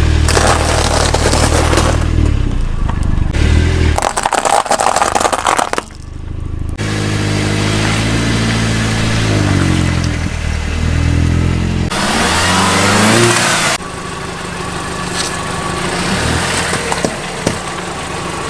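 Car engine running and revving in a series of short clips, its pitch rising and falling, with bursts of crunching and crackling as objects are crushed under the tyres.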